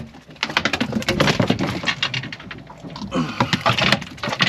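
A freshly landed mackerel thrashing on a boat deck, its body and tail slapping the deck in a rapid, irregular run of sharp smacks.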